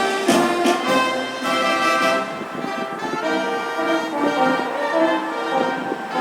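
Brass band playing a tune, with drum beats in the first couple of seconds, then held brass notes.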